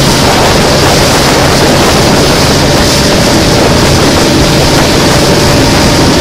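A boat's engine running steadily under way, with a loud, even rush of water and wind over it.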